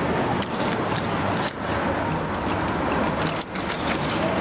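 Busy outdoor street noise with scattered light clinks and clatter.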